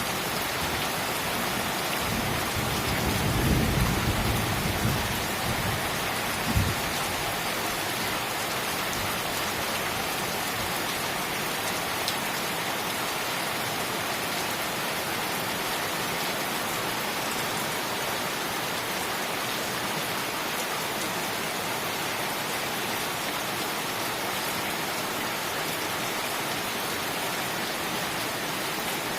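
Heavy rain pouring steadily, with a low roll of thunder rumbling from about two to six seconds in and a sharper thump just after.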